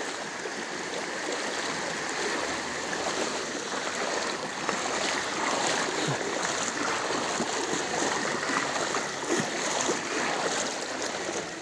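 Floodwater flowing in a strong current, a steady rush of moving water.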